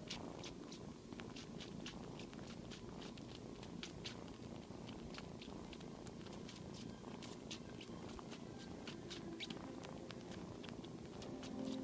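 Kitten purring steadily while suckling on a thumb, with small wet sucking clicks about three or four times a second.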